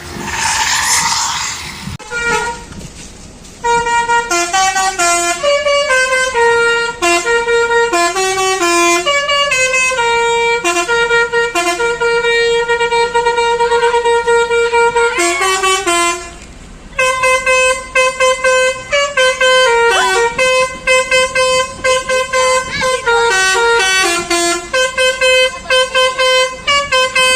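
Basuri telolet bus horn, a multi-tone musical air horn, playing a tune of quick changing notes with one long held note midway and a short break after it. A brief rush of noise opens the passage.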